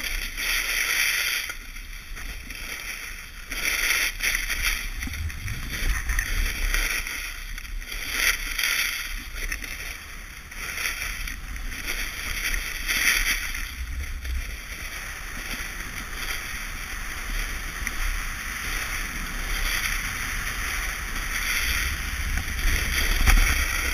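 Edges carving and scraping across groomed snow on a fast downhill run, with wind rushing on the microphone. The hiss swells and fades with each turn, every couple of seconds, over a low buffeting rumble.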